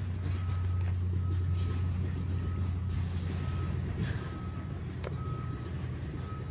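Can-Am Maverick X RC side-by-side's turbocharged engine idling with a steady low hum, while a short, high electronic warning beep repeats a little more than once a second. A brief click comes about five seconds in.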